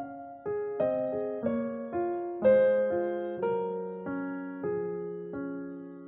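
Background music: a slow piano melody, single notes struck about two a second, each fading away.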